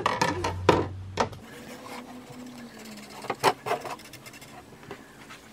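Felt-tip marker rubbing on a wooden craft mask, with a cluster of light clicks against the table about midway.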